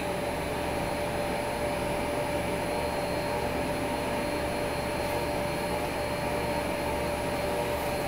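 Narwal S10 Pro wet-dry vacuum on its self-cleaning base running its drying cycle: a steady fan whir with a constant whine, as it dries the roller mop and dirty-water tank filter.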